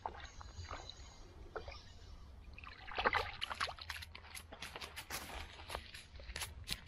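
Freshly landed roach flapping on the stones and dry grass of the bank: faint water sounds at first, then from about three seconds in a quick, irregular run of sharp slaps and rustles.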